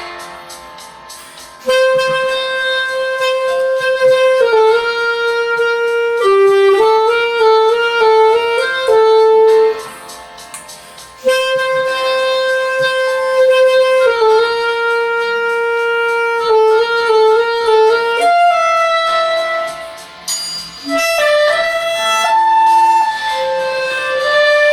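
B-flat clarinet playing a slow melody in phrases of long held notes, over a faint backing track from a phone's speaker. The playing breaks off about ten seconds in, resumes, and moves into a higher passage near the end.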